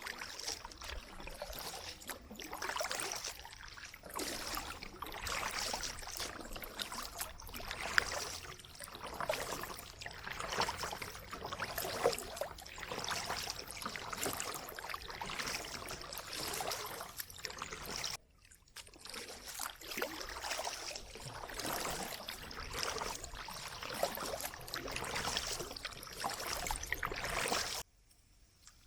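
Kayak paddle strokes dipping into the water, with splashing and dripping water in a rough rhythm of a stroke every couple of seconds. The sound briefly drops out twice.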